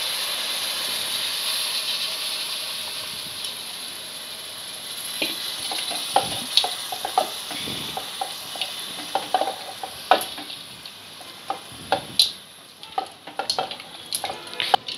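Tamarind extract poured into vegetables frying in hot oil in an aluminium pot sizzles with a steady hiss that fades over the first few seconds as the liquid cools the oil. About five seconds in, a metal spatula begins stirring, with scattered clinks and scrapes against the pot.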